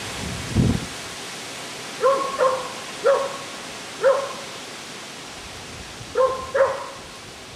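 A dog barking six times in short, high barks, two of them in quick pairs. A low thump about half a second in.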